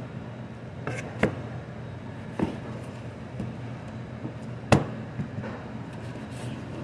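Sharp knocks of a knife and raw strip loin on a plastic cutting board during butchering, about five separate knocks with the loudest about two-thirds of the way in, over a steady low hum.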